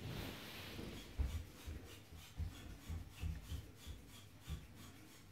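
Faint rubbing and scraping with soft, irregular low bumps: a Burmese python's body sliding over a laminate floor.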